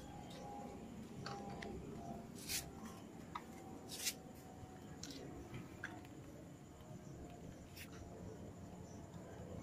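Several sharp clicks and light taps of hands handling the plastic and metal parts of a motorcycle's rear turn-signal light, over a faint steady background.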